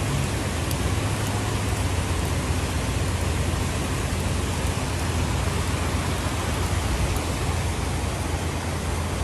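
Heavy rain falling steadily, with a steady low rumble underneath.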